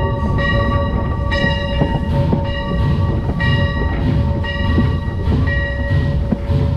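Pennsylvania Railroad #331's bell ringing about once a second over the steady low rumble of the locomotive rolling along the track, with scattered clicks from the wheels.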